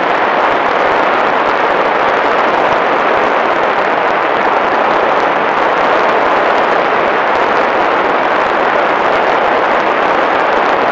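Steady, loud rush of airflow and propeller noise heard from a camera on board a small fixed-wing UAV in flight, holding level and pitch without change.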